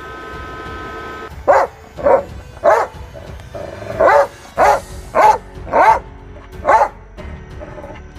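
A Doberman pinscher barks eight sharp single barks at drifting soap bubbles, which it treats as a threat. The barks come about half a second apart, with a short pause after the third.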